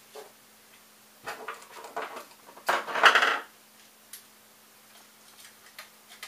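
Small metal hardware and hand tools clinking and rattling as they are picked up and handled on a desk, a run of clatter loudest about three seconds in, followed by a couple of single clicks.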